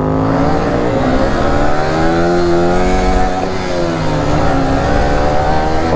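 Yamaha R15 V3's single-cylinder engine revving while being ridden. Its pitch climbs over the first couple of seconds, drops back about three and a half seconds in, then rises again near the end, with wind rush over it.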